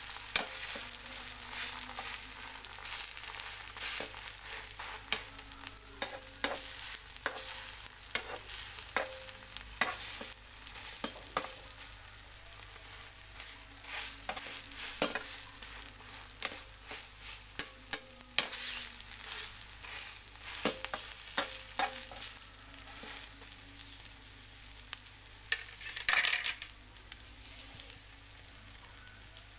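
Omelette sizzling steadily in an aluminium frying pan, with a slotted spatula scraping and tapping against the pan in irregular strokes. There is a louder scrape about 26 seconds in.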